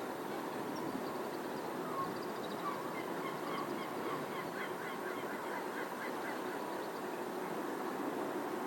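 Steady hum of city traffic, with a bird calling in a quick series of short notes, several a second, for a few seconds in the middle.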